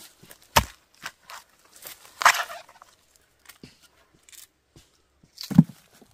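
Chickens clucking and squawking, mixed with a few sharp knocks and one heavy thump about five and a half seconds in.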